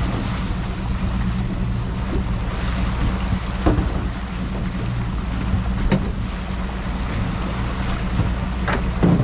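Suzuki outboard motor running steadily at trolling speed, a low hum under wind and water rushing past the moving boat. There are a few short knocks, about four, six and nine seconds in.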